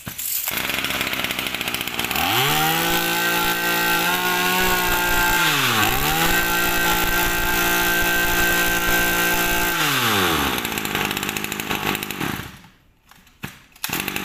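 Kawasaki TF22 22cc two-stroke brush cutter engine running. It revs up to a steady high speed about two seconds in, dips briefly and picks up again near six seconds, then winds down around ten seconds and stops.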